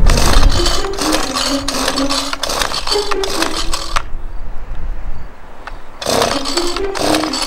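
Small gasoline engine of a handheld garden cultivator being pull-started: rough cord pulls with the engine sputtering briefly, a pause of about two seconds midway, then more pulls and sputters.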